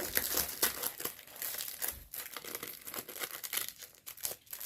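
Packaging of a diamond painting kit crinkling and rustling as it is handled and opened by hand, an irregular run of crackles.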